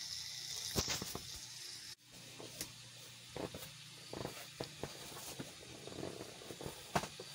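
Faint watery hiss of a small 5 W submersible pump drawing at the last shallow water of a drained pool, which it can barely reach any more. The hiss cuts off about two seconds in. After that come only faint scattered clicks and taps.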